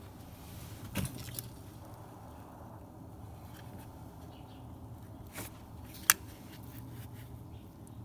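A few sharp clicks and knocks of tools and parts being handled at a car's oil pressure switch and its wiring connector. The loudest comes about six seconds in, over a low steady hum.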